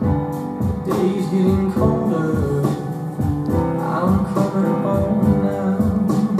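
Recorded song playing: singing over guitar with a steady beat.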